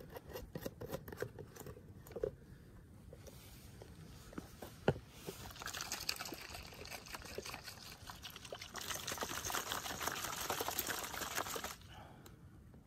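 Water poured from a plastic bottle into a plastic jar of dry food to cold soak it. A steady trickle starts about halfway in, grows louder and stops shortly before the end, after a few small clicks and handling knocks.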